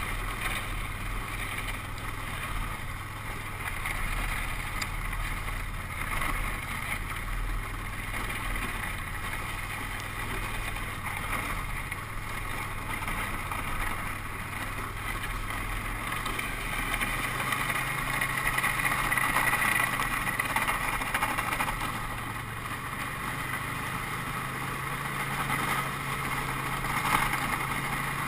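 Snowmobile engine running steadily as the sled rides over packed snow. The engine note shifts a few times and rises a little about two-thirds of the way through.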